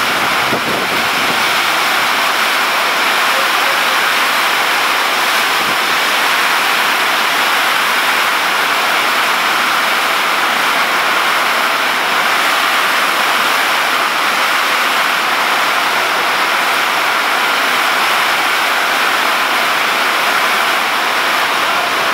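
Heavy rain pouring down in a storm, a loud, steady, even hiss.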